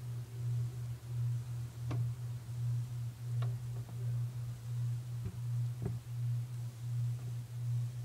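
A low steady hum that throbs about twice a second, with four faint clicks from a tegu's jaws working at food in a steel bowl.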